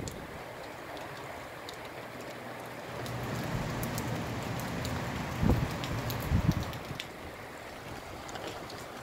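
Steady rain with gusty wind, with faint pattering ticks of drops. Two short gusts buffet the microphone about five and a half and six and a half seconds in.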